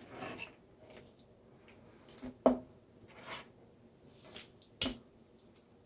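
Knife trimming raw chicken breast: soft wet squishing and slicing of the meat, with two sharp knocks, about two and a half seconds apart.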